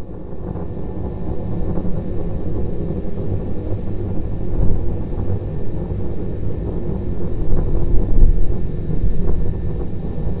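Low, uneven rumble of Starship SN9's Raptor rocket engines as the prototype climbs on two of its three engines, swelling about halfway through and again near the end.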